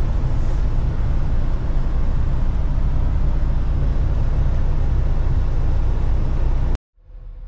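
Steady low drone of a semi truck's engine and tyre noise heard from inside the cab while driving. It cuts off abruptly near the end, leaving a much quieter low hum.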